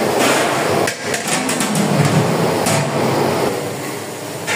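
Metal clatter as a ladle and the lid of a large aluminium cooking pot are handled and the lid is set on the pot: a run of knocks about a second in, then single knocks later. Under it is the steady noise of the gas burner flames under the pot.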